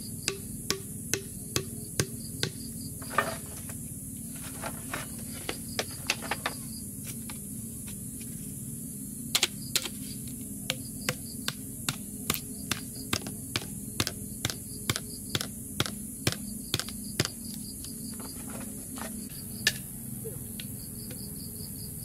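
Repeated sharp knocks, about two a second, like tool blows on wood, in two runs with a pause between, over a steady high insect drone.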